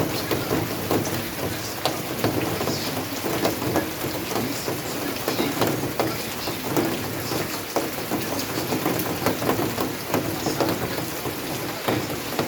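Steady rain falling, with many separate drop hits on a hard surface.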